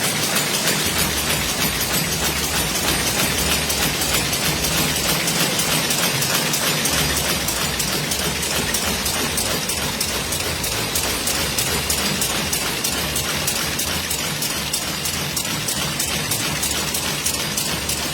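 HLP 200 round-corner cigarette packing machine running at production speed, a steady rapid mechanical clatter of evenly repeating clicks over a low hum.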